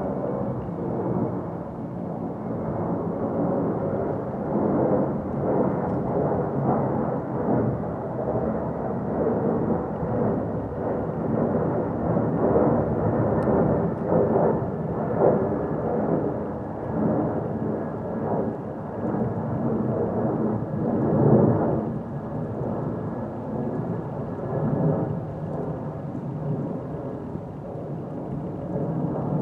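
Boeing 767 freighter's twin jet engines running loudly with a deep, continuous rumble that swells as the aircraft passes. A faint, steady high whine sits above the rumble.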